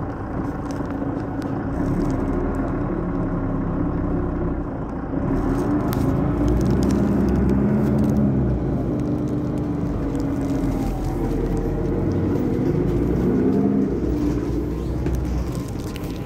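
Mercedes-Benz Citaro facelift city bus's diesel engine accelerating away. Its note rises and drops back several times as the automatic gearbox shifts up.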